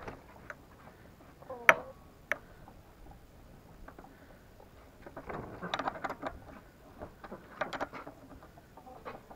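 Metal clinks and clicks of a ring spanner on a bolt while the gearbox is being fastened to the engine: one sharp clink about one and a half seconds in, a lighter one just after, then two runs of quick clicking rattles in the middle and near the end.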